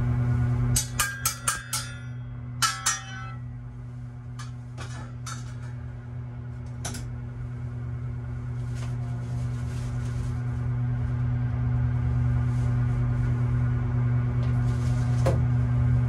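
A steady low electrical hum, slowly growing louder, with a quick run of about five sharp metallic clicks about a second in and two more shortly after.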